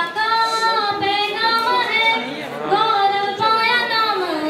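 A woman singing a devotional Hindi song about renouncing the world, in long held notes that waver and slide between pitches.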